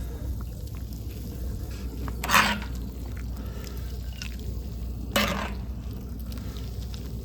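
Hot kimchi bean-sprout soup being poured: two short splashy pours about three seconds apart, over a steady low background rumble.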